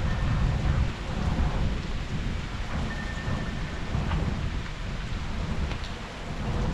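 Strong gusty wind and heavy rain, with the wind buffeting the microphone in a surging low rumble.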